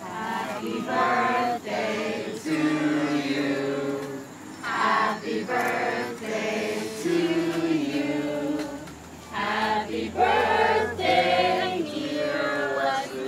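A group of voices singing a birthday song together, in several held phrases with short breaks between them, as the cake with lit candles is presented.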